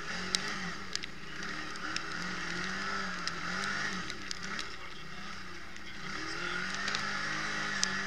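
Quad bike engine heard close up from on board while racing on a dirt track, its pitch rising and falling repeatedly as the rider accelerates and eases off. Wind rushes over the microphone, with scattered sharp clicks and knocks.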